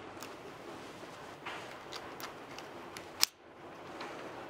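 Faint clicks and ticks of a small steel snap ring being worked by hand into the groove on an AR buffer spring's slider, with one sharper click a little over three seconds in, over a steady low hiss.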